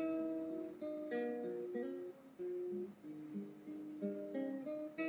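Background music: a plucked acoustic guitar playing a gentle melody, note by note.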